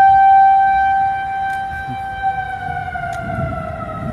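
Outdoor tornado warning siren wailing on one steady high tone. About two seconds in, the tone begins to slide slowly lower in pitch.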